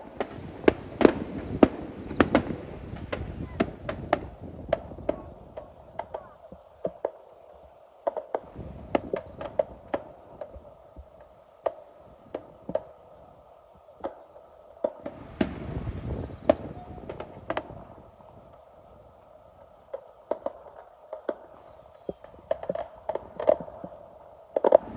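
Fireworks going off: many sharp pops and crackles at irregular intervals, with low rumbling booms near the start, about a third of the way in and again past the middle.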